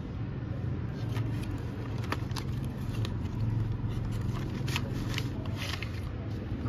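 Cardboard watercolour-set box being handled and its plastic paint tray slid out of the sleeve: a scattering of light clicks and scrapes, about a second in and running to near the end. A steady low rumble runs beneath.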